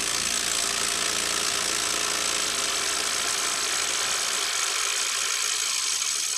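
Hyper Tough 12-volt brushless impact driver hammering without a break under load, tightening a bolt against hydraulic rams: a loud, steady, dense rattling buzz.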